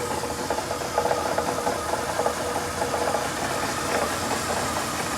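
Lada Priora's 126 engine running with a fast, metallic knocking over its steady sound. The cause turned out to be the crankshaft timing gear, its flats half worn away and the gear loose on the crankshaft because the plate between it and the alternator pulley had been left out.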